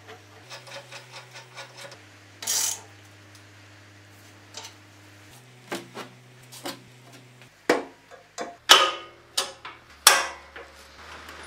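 Steel parts of a homemade loader, hydraulic cylinders, pivot pins and bolts, being handled and fitted: a run of light metal ticks at first, a short scrape, then several sharp metal clanks and knocks in the second half.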